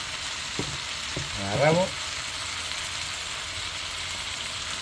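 Fish and rice frying in a hot nonstick pan, a steady sizzle, with a brief voice sound about a second and a half in.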